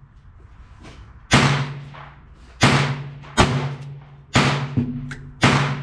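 Taurus Model 66 .22 LR rimfire revolver firing five shots, irregularly spaced about a second apart. Each crack is followed by a short ringing echo, and a few fainter cracks fall in between.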